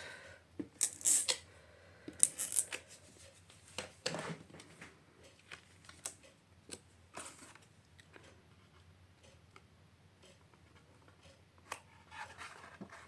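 Adhesive being put onto small pieces of card-making paper: a few short scratchy rasps and light taps in the first four seconds, then only sparse faint clicks of paper being handled.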